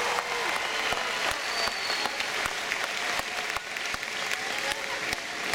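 Crowd applauding, many hands clapping with a few voices mixed in.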